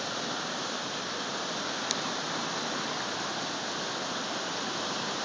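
Floodwater rushing, a steady even hiss of moving water. A faint click about two seconds in.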